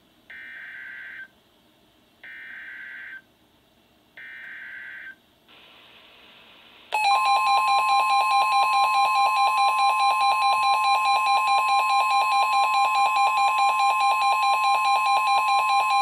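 NOAA Weather Radio Emergency Alert System activation through a weather radio's speaker: three short bursts of the SAME digital header, a harsh squawking data tone, about a second apart. After a brief pause, a loud, steady, high warning alarm tone starts about seven seconds in, signalling a Special Marine Warning.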